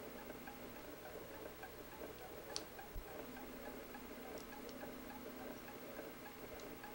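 Faint, steady ticking, with a few light, sharp clicks as the metal case opener's pins are fitted against the steel watch back.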